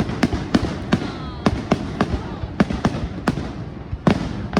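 Fireworks going off in a rapid, irregular string of sharp bangs, about three a second, over a continuous low rumble of echoing bursts.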